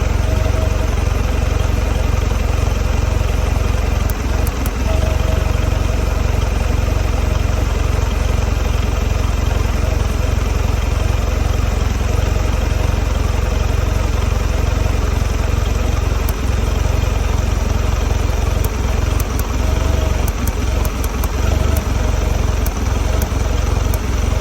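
2022 Mercury 150 four-stroke outboard idling roughly, a steady low engine note that the owner takes for a rough idle.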